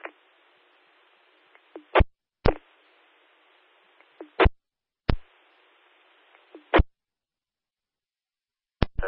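A police scanner's radio channel keyed up three times with no voice. Each transmission opens with a short burst, carries about two seconds of faint hiss, and closes with another burst. Near the end there is another brief pair of bursts.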